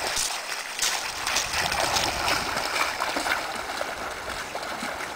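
Splashing of a dog wading out through a shallow river, with irregular splashes over the steady rush of the flowing water.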